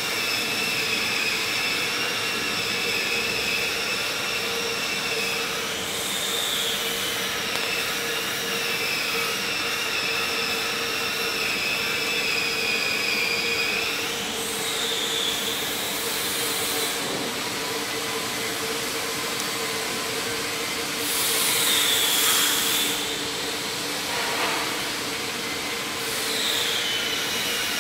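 Steady machinery noise with a constant hum and several high-pitched whines that dip in pitch and recover a few times, with a louder swell a little past the middle.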